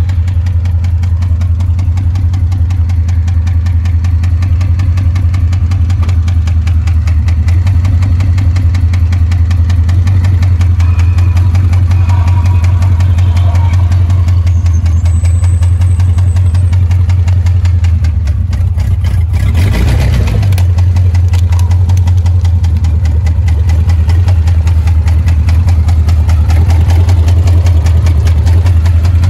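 A 5.7 HEMI V8 idles with a rapid, steady knock throughout. The knock is the sign of the damage done when the engine hydrolocked on water: a broken connecting rod and a hole in the block.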